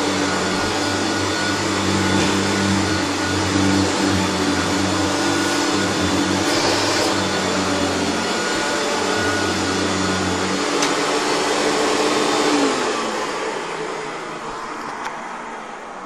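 Hoover Turbopower 3 U2880 upright vacuum cleaner running steadily while cleaning carpet, then switched off about 12 seconds in, its motor falling in pitch and fading as it winds down. The owner puts the noise it makes while slowing down to a slightly dry rear motor bearing.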